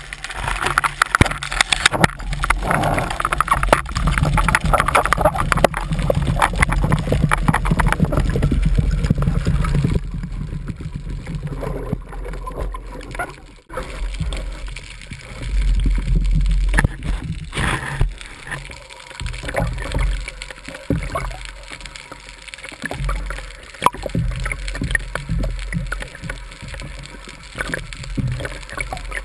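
Water rushing and sloshing as heard through an underwater camera housing while a freediver swims, with scattered knocks. Heavier and busier for about the first ten seconds, then lighter, with low surging swells.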